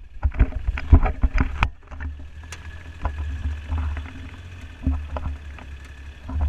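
Low wind rumble buffeting an action camera's microphone as it moves, swelling and fading. A quick run of sharp knocks and clicks comes in the first second and a half.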